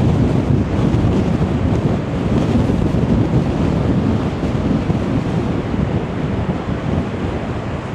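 Strong gusty wind buffeting the microphone, mixed with the rumble of rough sea surging against the sea wall. A constant deep rushing that swells and dips without letting up.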